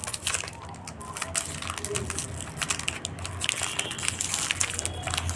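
Plastic packaging crinkling and crackling in a dense run of small clicks as fingers pick at and peel sellotape off a watch case.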